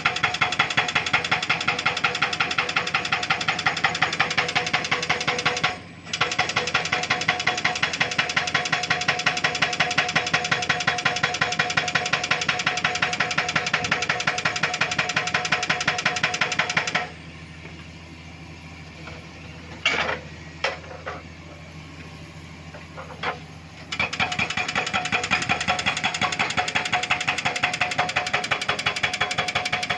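Excavator-mounted hydraulic rock breaker hammering rock in rapid, evenly spaced blows over the excavator's running engine. The hammering breaks off briefly once, then stops for several seconds in the second half, leaving the engine and a few separate knocks, before starting again near the end.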